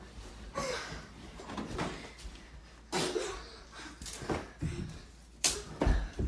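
Scuffling of a sweatshirt play-fight: fabric swishing and flapping as sweatshirts are swung and hit, with footsteps on carpet, in short bursts about once a second and two louder thumps near the end.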